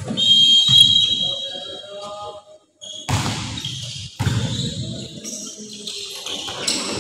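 Indoor volleyball match in an echoing sports hall: a short, steady referee's whistle blast near the start, then ball hits and thuds amid players' and spectators' noise. The sound drops out for a moment midway.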